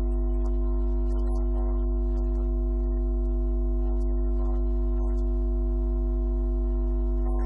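Background music: a steady sustained chord, like a held drone, over a low hum.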